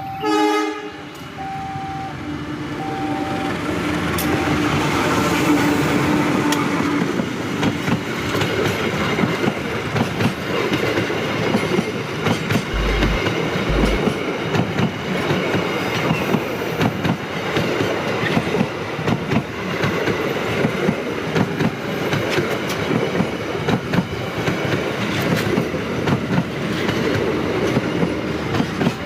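A passenger train's horn sounds briefly about half a second in. The train then passes, its wheels clattering rhythmically over the rail joints; the noise builds over the first few seconds and keeps going. A level-crossing warning alarm's two-tone beeping carries on under the horn for the first few seconds.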